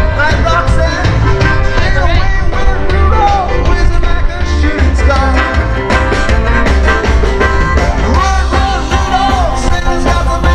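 Rock band playing live, with electric guitars, bass, drums and a singer.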